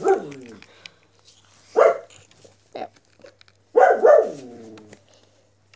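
A pet animal calling over and over: short cries about two and three seconds in, and long cries that slide down in pitch at the start and about four seconds in.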